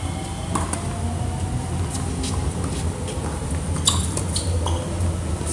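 Tennis ball struck by racquets in a singles rally: a serve about half a second in, a fainter distant return, and the loudest hit near four seconds. A steady low rumble runs underneath.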